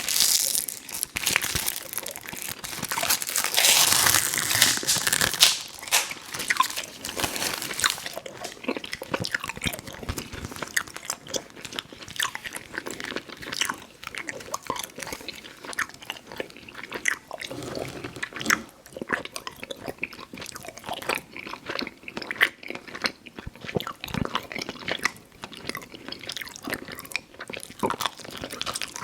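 Close-miked eating of Fruit Roll-Ups fruit-leather candy: biting and chewing with many short, sharp, sticky mouth clicks. The first eight seconds or so are louder and denser.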